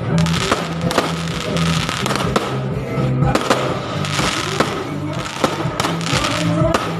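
Aerial fireworks going off, with repeated sharp bangs and crackles several times a second, over loud music with a steady, repeating bass line.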